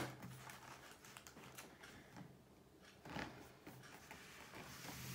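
Faint clicks and knocks of a plastic dollhouse being handled, with one sharp click at the start and a few louder knocks about three seconds in, over a low steady hum.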